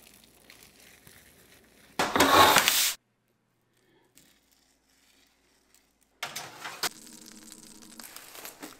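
Plastic cling film crinkling and tearing as it is pulled tight around a pastry-wrapped parcel, in one loud burst about a second long that starts and stops abruptly a couple of seconds in. After a quiet gap, softer rustling and handling noise follows near the end.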